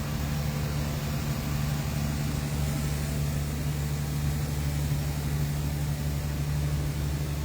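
A boat's engine running steadily while under way: a constant low drone with an even, unchanging level.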